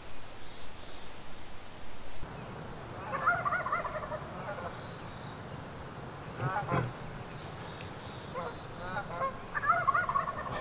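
Wild turkey yelping: a series of repeated raspy yelps about three seconds in, a short quick run of notes near seven seconds, and another longer series of yelps near the end.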